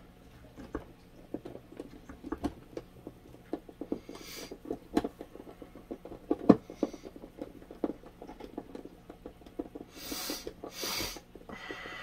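Irregular light clicks and knocks from working on a mini box fan's motor and blade hub, tapping to seat the freshly oiled, previously seized bearings, with one sharper knock about halfway through. A faint steady hum runs underneath, and a couple of short hissing rushes come near the end.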